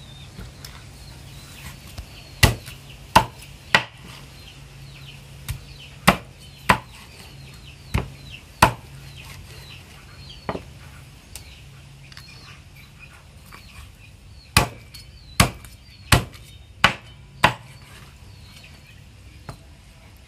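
A heavy cleaver chopping boiled poultry through meat and bone on a round wooden chopping block: loud single chops at uneven intervals, about a dozen and a half in two runs with a pause of a few seconds between them.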